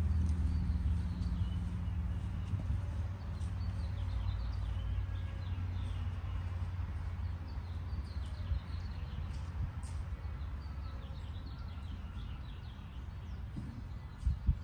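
Small birds chirping over a low hum that fades away during the first few seconds; two quick knocks near the end.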